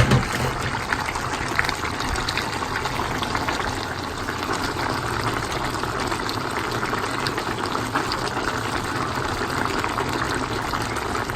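Pot of egusi soup cooking on the stove: a steady bubbling hiss with small scattered pops.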